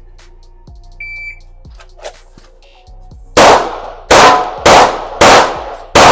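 Shot timer's start beep, a short high electronic tone about a second in, followed about two seconds later by rapid fire from a Glock 45 9mm pistol: five loud shots about 0.6 s apart, each with a brief ringing tail.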